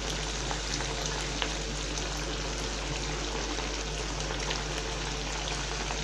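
Wild mallard pieces in tomato sauce bubbling and sizzling in a frying pan, with a steady patter of small pops as the watery sauce boils down. A steady low hum runs underneath.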